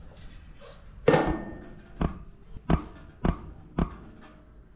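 Sharp metal knocks on the aluminum tube camper frame while a brace is fitted: five hits over about three seconds, the first the loudest with a short ring.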